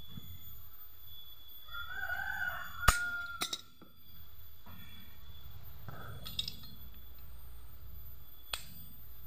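A rooster crows in the background about two seconds in. Just after it come sharp metal clinks of hand tools on a small door-hinge part: the loudest about three seconds in, two lighter ones right after, and one more near the end.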